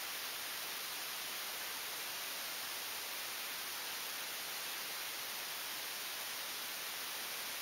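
Steady, unchanging hiss of static, strongest in the high range, with no other sound standing out.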